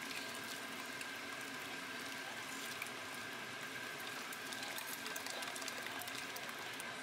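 Thick boiled lentils (dal) pouring into a pan of hot oil, spices and tomato, a steady liquid pouring and bubbling sound with small splashes that pick up about four to six seconds in. A faint steady high hum runs underneath.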